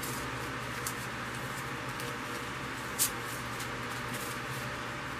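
Steady background hiss and hum with a few soft ticks and one short click about three seconds in, from artificial flowers being handled and their stems pushed into a foam ball.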